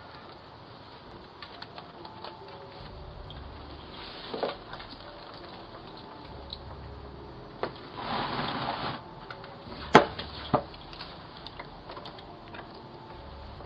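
Doorbell camera's microphone picking up a steady hiss, with a few separate sharp knocks, the loudest about two-thirds of the way in, and a brief rush of noise just before it.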